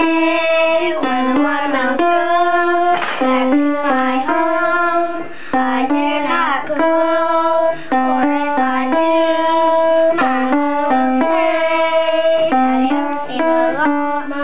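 A young child singing a song, moving from note to note and holding each for up to about a second, with another child playing an upright piano alongside.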